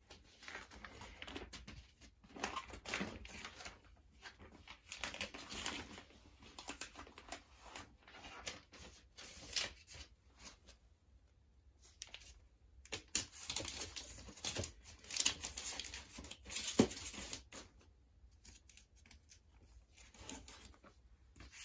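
Paper record sleeves and cardboard album jackets being handled and slid together, as a vinyl record goes back into its sleeve: irregular rustling and scraping of paper and card, with a couple of short pauses.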